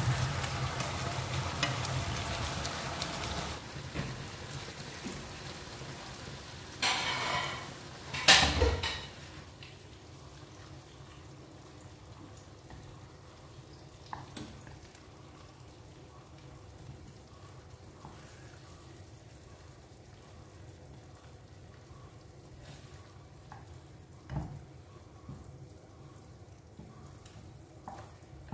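Thick char siu glaze sizzling in a frying pan as the pork pieces are turned with chopsticks, the sizzle loud at first and dying down after a few seconds as the sauce cooks almost dry. A scrape and then a sharp loud clatter come about a third of the way in, followed by a low sizzle with a few light taps as the pieces are lifted out.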